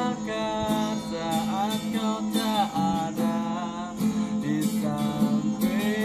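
Acoustic guitar strummed in a steady rhythm, with a man singing over the chords.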